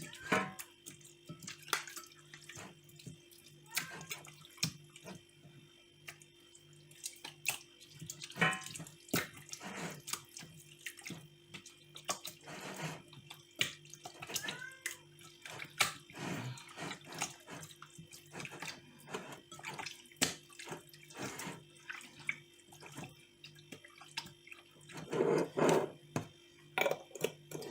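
Wet squelching and scattered clicks of hands rubbing wet jerk seasoning into raw chicken thighs, in uneven bursts.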